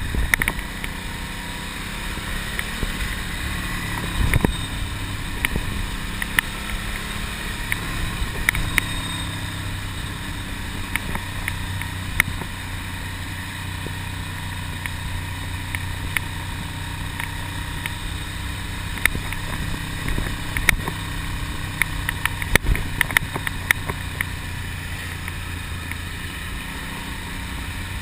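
Ducati Monster's air-cooled V-twin engine running at a fairly steady speed on the move, with wind noise and scattered sharp clicks.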